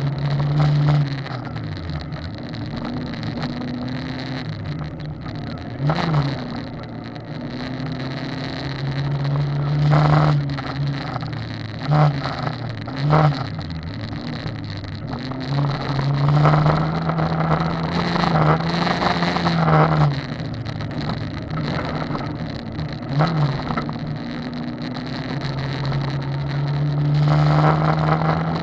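Car engine heard from inside the cabin, running hard and rising and falling in pitch as the driver accelerates, lifts off and changes gear, over the rumble of tyres on a gravel road, with a few sharp knocks.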